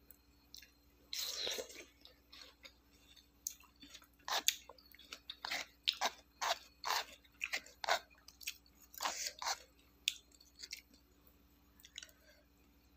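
A person chewing crisp raw fruit from a rujak of mango and starfruit in a thick sauce, close to the microphone: a string of irregular, wet crunches, thickest in the middle.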